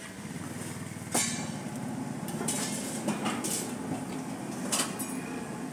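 Metal spatula clinking and scraping on a flat griddle while kulchas cook, with a few sharp knocks spread through, over a steady low hum.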